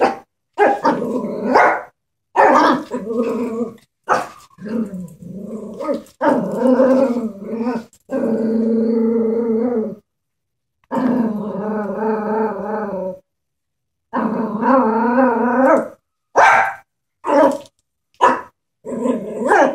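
Chihuahua growling and barking at a stuffed toy horse: long drawn-out growls of about two seconds each, then short sharp yaps near the end.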